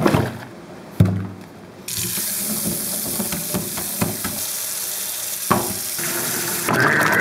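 Wet faux fur sloshed twice in soapy water in a stainless steel sink. Then, about two seconds in, a tap starts and water runs steadily into the sink. Near the end the running water grows louder.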